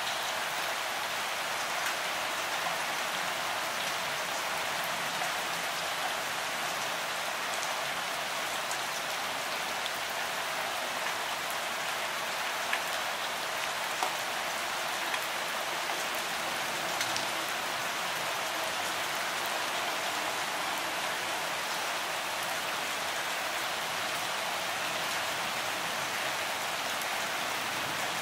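Steady rain falling: an even hiss, with a few sharper single-drop taps standing out now and then.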